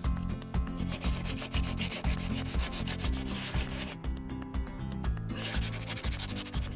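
Sandpaper rubbed by hand over a boat's hard gelcoat, a steady scratching run of short back-and-forth strokes that stops for about a second around four seconds in, then starts again.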